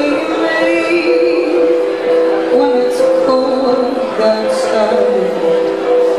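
Live song: a woman singing into a microphone over long held notes on a Roland RD-700SX digital stage piano.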